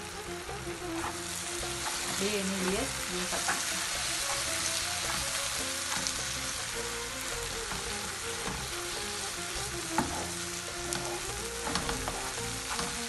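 Onion-tomato masala sizzling in a non-stick frying pan as it is stirred, working in freshly added ground spices (turmeric, cumin, pepper), with scattered scrapes and taps of the stirring utensil against the pan and one sharp knock about ten seconds in.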